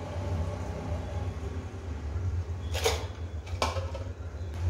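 Kitchen handling sounds over a steady low hum: two sharp knocks of metal cookware about three seconds in, a fainter one near the end.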